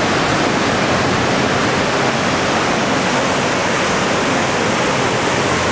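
Steady rush of water foaming and churning along the hull of a moving cruise ship.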